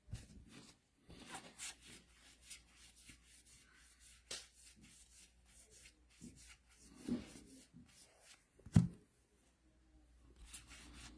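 Baseball trading cards being handled by hand: faint sliding and rubbing of cards with small scattered taps, and one sharper tap about three-quarters of the way through.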